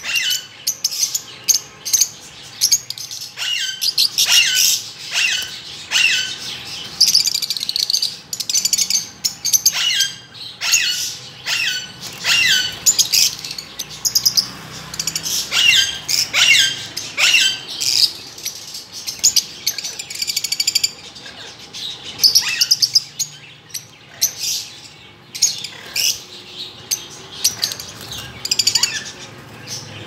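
A flock of Fischer's lovebirds calling nonstop: a stream of sharp, high-pitched chirps that each drop quickly in pitch, broken by short spells of rapid twittering.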